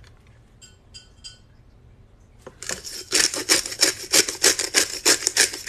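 A pepper mill grinding pepper with a rapid run of rasping twists, starting about two and a half seconds in and lasting about three seconds.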